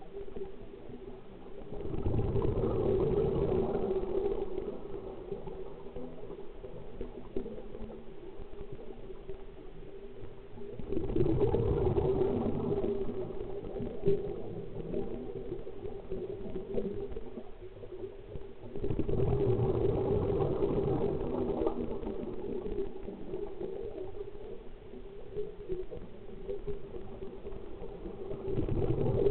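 Scuba diver's exhaled breath bubbling out of the regulator underwater, in rumbling bursts of two to three seconds about every eight seconds, four times. A steady low hum runs between the bursts.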